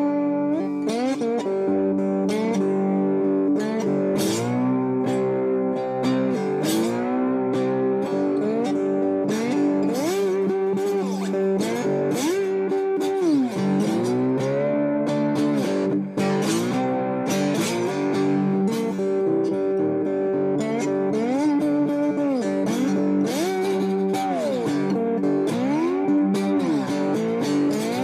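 Guitar played through an amplifier in a slide style, with notes gliding up and down over ringing, sustained low strings and frequent plucked attacks.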